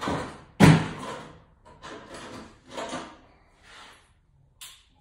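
Knocks, clunks and scraping of tools and hardware being handled: one sharp, loud clunk about half a second in, then several shorter bursts.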